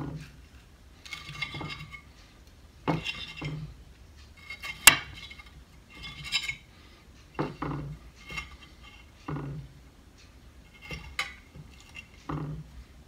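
A metal fork clinks and scrapes against a ceramic plate as it cuts into a baked stuffed onion. The short strokes come irregularly, every second or so, and one sharp clink about five seconds in is the loudest.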